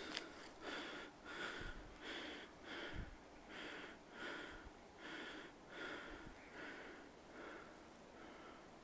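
Heavy panting of a person out of breath after climbing a long flight of stone stairs, about two breaths a second, slowly growing quieter.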